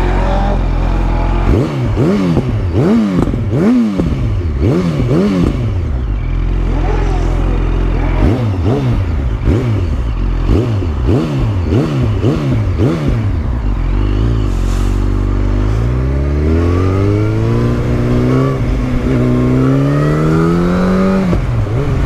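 Motorcycle engine idling, then revved in two runs of quick throttle blips, about two a second, each rising and falling in pitch. Near the end it climbs steadily in pitch over several seconds, in a couple of steps.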